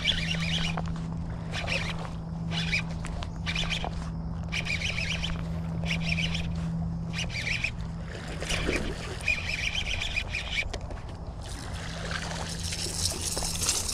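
Baitcasting reel winding in line in short bursts about once a second, as a walking topwater lure is worked back. Water splashes and sloshes near the end as the lure's wake reaches the shallows.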